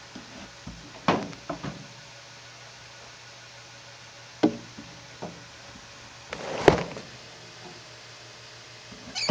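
Handling noises in a glass reptile tank: a few sharp knocks, the clearest about one second and four and a half seconds in, and a short scraping rustle about six and a half seconds in.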